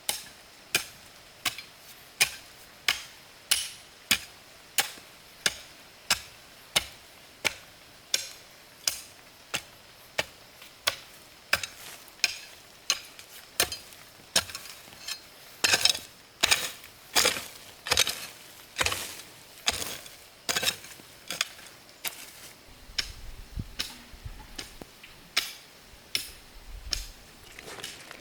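A hand tool chopping in steady, repeated strokes, about one and a half a second, a little louder for a few seconds past the middle.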